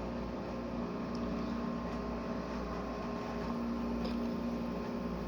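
Frigidaire window air conditioner running just after start-up: a steady hum of compressor and fan with an even whoosh of air, swelling slightly about three to four seconds in.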